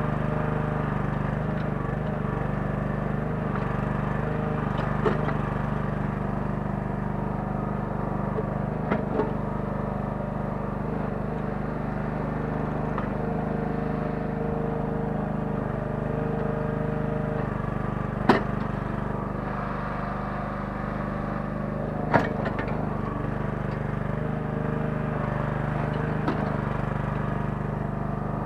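The small 9 hp engine of a Kellfri towable mini excavator running steadily under the digging work, with a few sharp knocks in between, the two loudest in the second half.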